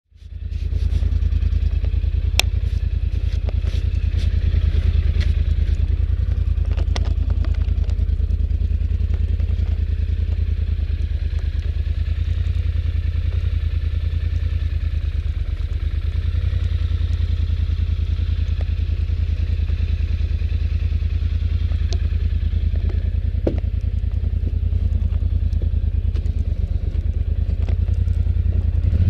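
Polaris Sportsman 850 ATV's twin-cylinder engine running steadily, with a few sharp clicks scattered through it.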